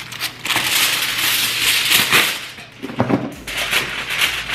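Aluminium foil being pulled from its box and crinkling as it is handled, in two spells with a short break about three seconds in.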